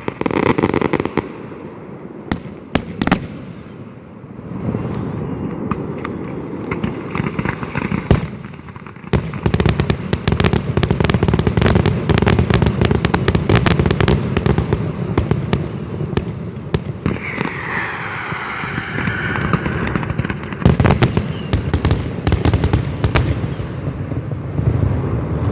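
A fireworks display: shells banging and crackling, thickening about nine seconds in into a dense, near-continuous barrage of bangs. A falling whistle cuts through partway through.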